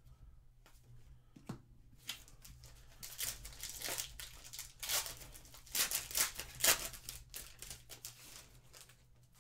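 A shiny foil wrapper of a Panini Legacy football card pack being torn open by hand and crinkled: a run of tearing and crackling that starts about two seconds in, is loudest a little past the middle and dies away near the end.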